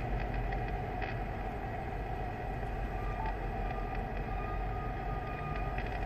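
Steady low hum and hiss inside a parked car, with a faint thin tone coming and going in the second half.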